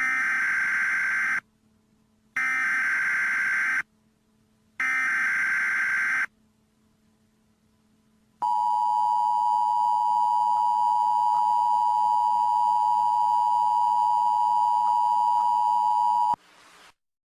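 Emergency Alert System signal: three bursts of digital header data, each about a second and a half long with a second's gap between them. About two seconds later the two-tone EAS attention signal starts, a steady dual-pitched tone held for about eight seconds that stops shortly before the end.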